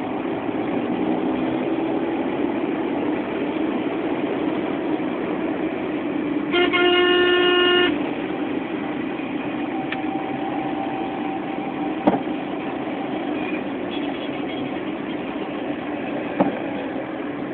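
Street traffic heard from inside a moving car, with a steady road and engine noise. A vehicle horn blows loudly for over a second about a third of the way in. Fainter horn toots and two sharp knocks come later.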